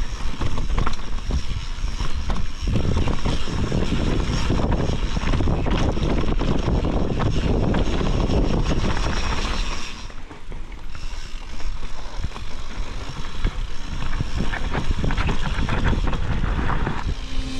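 Mountain bike riding a dirt trail: wind rushing over the camera microphone, tyre noise, and the bike's frame and parts rattling over bumps. It eases briefly about ten seconds in.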